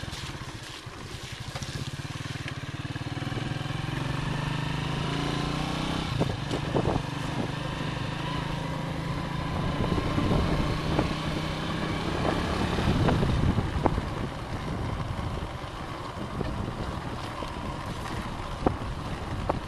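Motorcycle engine running steadily under way, its pitch shifting a little with speed, with wind and road noise and a few sharp knocks.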